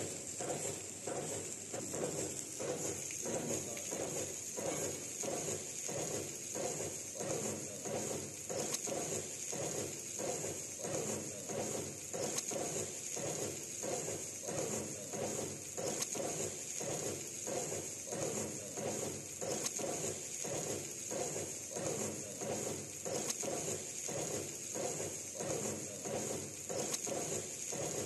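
Gas-fired automatic wok-tossing stir-fry machine cooking fried rice: its mechanism rocks the wok back and forth in a steady, even rhythm, the rice rattling and sizzling with each toss, over a constant high hiss.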